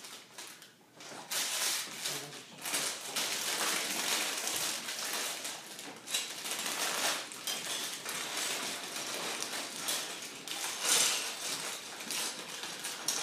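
Handling of a Lego set's packaging and pieces: irregular rustling and crinkling with light clicks and clatter of plastic.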